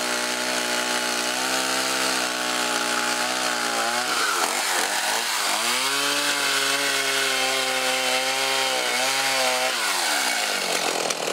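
Two-stroke gas chainsaw running at high revs as its chain cuts through pond ice. The engine pitch dips and climbs back twice as the bar works through the ice, then falls away as the throttle is released near the end.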